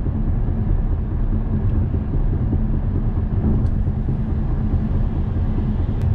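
In-cabin noise of a BMW 640d coupe cruising on the motorway in Eco Pro mode: a steady low rumble of tyres and road, with the 3.0-litre twin-turbo diesel straight-six droning underneath.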